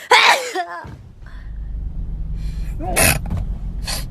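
A young woman sneezing twice, loud voiced sneezes right at the start and again about three seconds in. A steady low hum runs underneath after the first sneeze.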